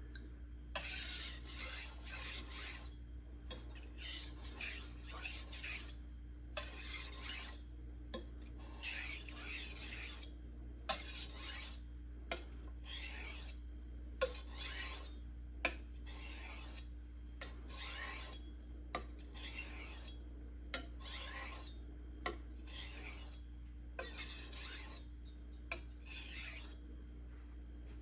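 A steel knife blade being stroked back and forth across a wet, hard 1200-grit Juuma Cobalt Blue waterstone, a gritty scraping rasp on each pass. There are about fifteen strokes with short pauses between them: finishing passes after a burr has been raised, with a little swarf loading the stone.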